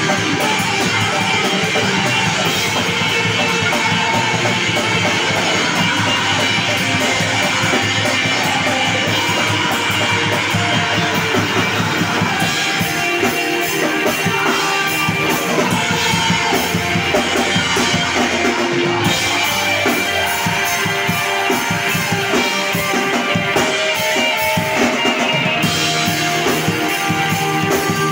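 Screamo band playing live: distorted electric guitars, bass guitar and drum kit in a loud, dense instrumental passage.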